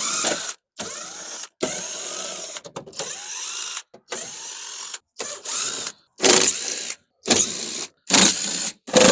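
Ratchet wrench clicking in short repeated strokes as it backs out the door panel's 7mm screws, the strokes coming about once a second near the end.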